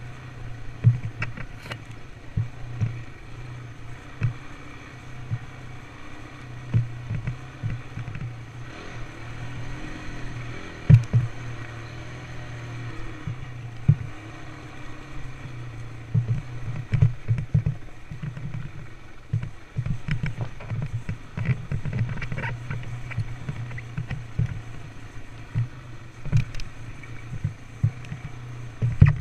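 Dirt bike engine running steadily, with frequent sharp knocks as the bike and helmet camera jolt over bumps in the trail.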